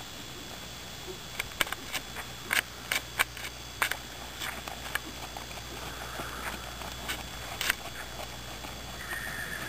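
Horse trotting in a sand arena: hoofbeats and tack give a run of sharp, irregular clicks a couple of seconds in, and one more near the end, over faint outdoor hiss.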